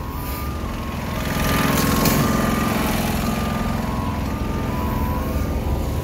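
Truck reversing alarm beeping over and over, with a vehicle engine running underneath, louder for a few seconds in the middle, and wind rumbling on the microphone.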